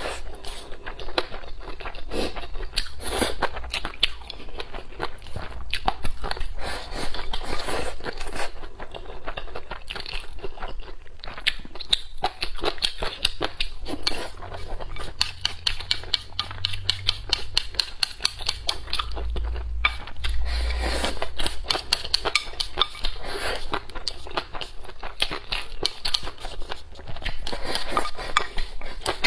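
Close-miked eating sounds: wet chewing and slurping as rice and braised pig intestines are shovelled from a bowl with chopsticks, a dense steady run of clicks and crackles.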